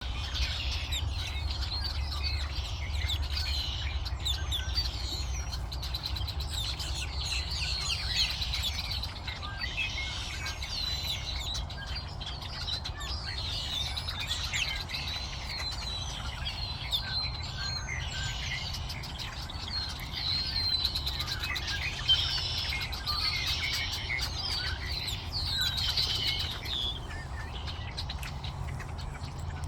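Many wild birds chirping and singing at once, a dense chorus of short overlapping calls and trills, over a steady low rumble.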